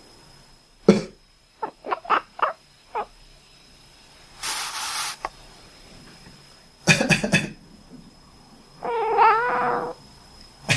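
A person coughs sharply, and a cat answers with a quick run of about five short, quacking chirps. A breathy rasp follows, then a cough of several quick bursts, answered by a longer, wavering quack-like call from the cat, about a second long.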